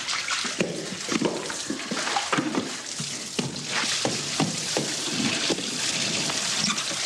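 Water splashing and sloshing on a flooded floor, with many short irregular splashes over a steady hiss of water spraying from a broken wall tap.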